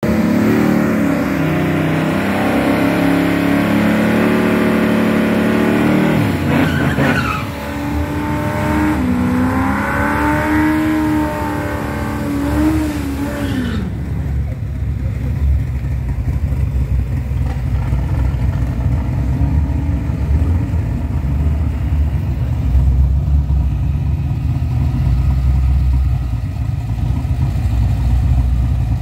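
Fox-body Ford Mustang drag car doing a burnout: the engine is held at high revs, its pitch wavering up and down, while the rear tyres spin. About halfway through the revs drop suddenly to a low, rough rumble as the car rolls forward.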